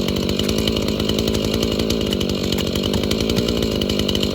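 Husqvarna two-stroke chainsaw engine running steadily, with no revving.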